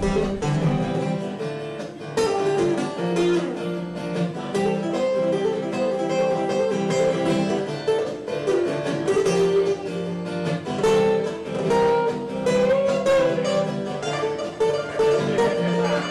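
Acoustic guitar played solo, a steady run of picked and strummed notes.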